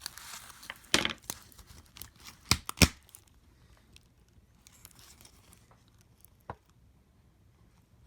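Plastic keyboard rivets on a MacBook Pro A1398 top case being pried off. Scratchy scraping, with three sharp snaps about a second in and again near the three-second mark, then a quieter stretch of light scraping and a single tick.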